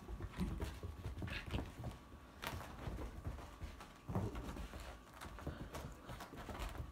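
A miniature dachshund and a Maine Coon cat play-wrestling on carpet: irregular soft thumps, scuffles and scrabbling paws, with a couple of sharper knocks.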